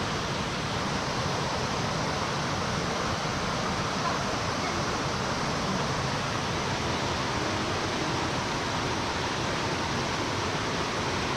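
Steady rush of flowing water in a mountain stream, an even hiss with no breaks.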